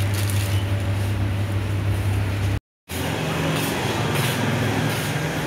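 Steady low hum and background noise of a shop interior. It drops out for a moment about two and a half seconds in, then carries on with a hum at a different pitch.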